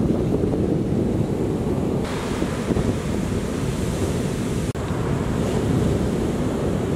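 Wind buffeting the microphone with a low rumble, over the hiss of surf breaking on an ocean beach. The surf hiss grows louder about two seconds in, and the sound breaks off for an instant about two-thirds of the way through.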